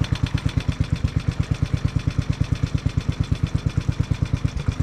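Engine of a Locke Triplex reel mower idling with a steady, even beat of about nine pulses a second, freshly rope-started and not yet throttled up.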